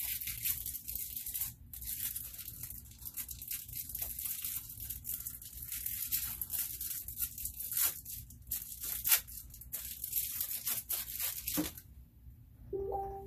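Thin plastic packaging bag crinkling and tearing as it is worked open by hand: a dense run of fine crackles with a few sharper snaps, stopping about twelve seconds in.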